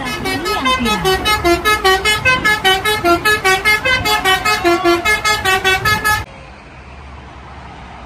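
Telolet bus horn: a multi-tone horn on a passing bus playing a rapid tune of short notes that jump up and down in pitch, about four or five a second, cutting off suddenly about six seconds in.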